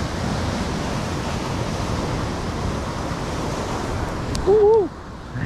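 Surf washing steadily over a rocky shore, with wind on the microphone. Near the end there is a click and then a brief vocal sound.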